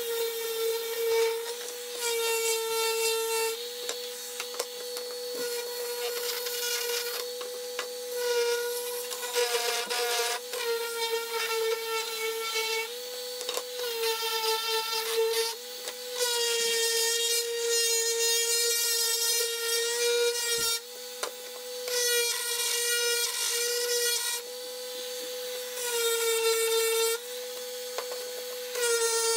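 Random orbital sander running on the edge of a curved wooden board: a steady motor hum under a rasping hiss of abrasive on wood, which grows louder and softer in stretches of a second or two as the sander is worked along the piece.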